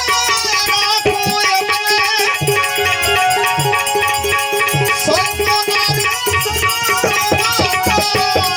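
Instrumental passage of Gujarati devotional folk music: drum strikes in a steady rhythm under a pitched melody instrument, with no singing.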